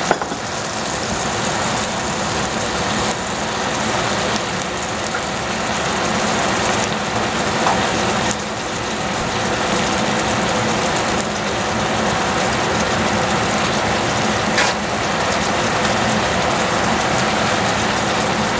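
Sliced squash, courgette and red onion sizzling in oil in a stainless steel saucepan: a steady, dense crackle.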